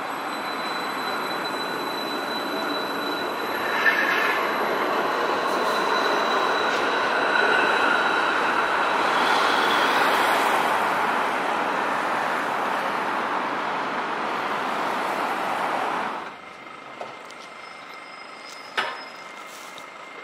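Light-rail tram running along street track as it approaches, a steady running noise with a thin high squeal over it, loudest around the middle. The sound cuts off abruptly about three-quarters of the way in, leaving a much quieter background.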